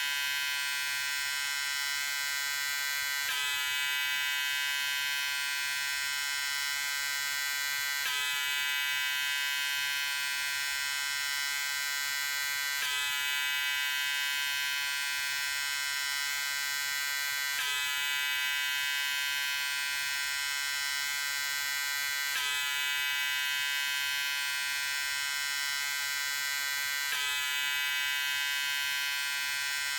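Electric razor running steadily with a high, even buzz rich in overtones. A slight break in the sound comes about every five seconds.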